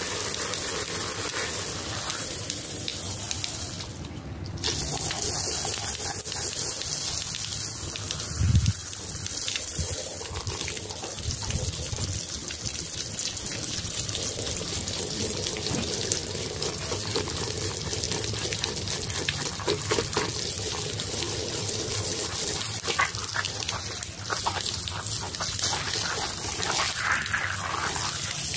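A jet of water spraying and splashing steadily across a wet rug, with a short drop about four seconds in and a low thump about eight and a half seconds in.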